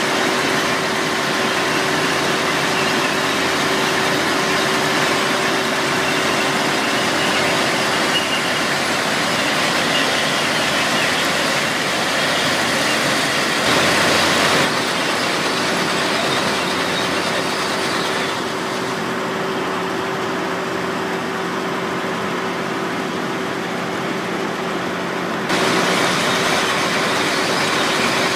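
Plasser & Theurer PM 1000 URM track formation rehabilitation machine at work: a continuous dense machinery drone with a constant hum. The mix shifts in loudness and tone a few times along the way.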